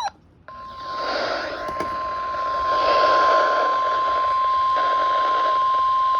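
NOAA Weather Radio warning alarm tone, the single 1050 Hz tone sent ahead of a warning broadcast: one steady, unbroken beep starting about half a second in and held for roughly six seconds over radio static. It signals that a warning message is about to be read.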